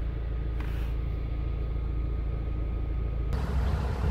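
Volkswagen Mk5's 1.9 TDI PD four-cylinder diesel idling hot at about 820 rpm, a steady low hum heard from inside the cabin. About three seconds in, the sound switches to the engine heard at the open engine bay, louder and noisier.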